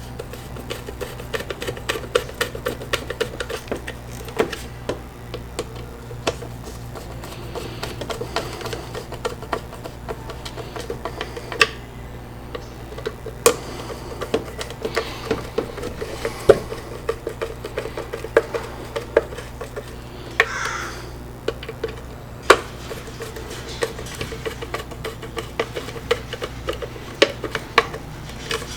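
Irregular light clicks and taps of small plastic parts and hand tools being handled while a leaf blower's switch housing is worked on, over a steady low hum, with a short scraping rasp about twenty seconds in.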